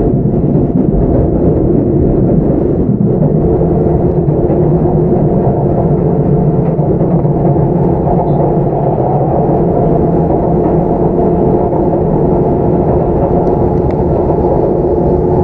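Sotetsu 9000 series electric train heard from inside the car, running at a steady speed. Its wheels rumble on the rail, with several steady droning tones from the traction drive underneath.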